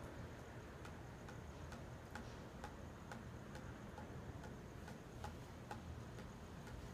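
Faint, even ticking, about two ticks a second, over low steady background noise and a faint high whine.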